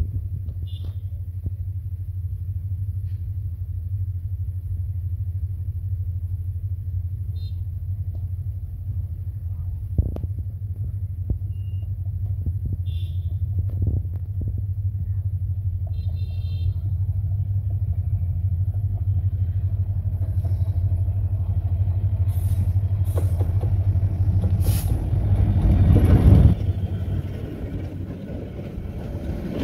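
Diesel locomotive of a passenger express approaching with a low, steady engine rumble that grows louder and peaks as it passes close about 26 seconds in. The intercity coaches then roll past with wheel clatter on the rails.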